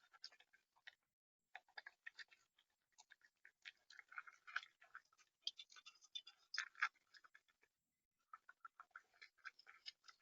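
Faint, irregular quick taps and clicks of a bird pecking at seed on the feeder tray, busiest and loudest in the middle, with short pauses about a second in and near the end.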